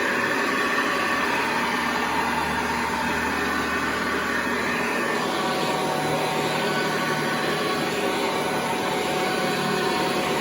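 Hoover Convertible Model 1076 upright vacuum cleaner running steadily.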